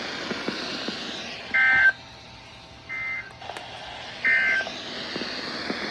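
NOAA Weather Radio broadcast sending three short digital data bursts about 1.4 s apart over a steady radio hiss: the EAS end-of-message (SAME EOM) tones that close the Required Weekly Test.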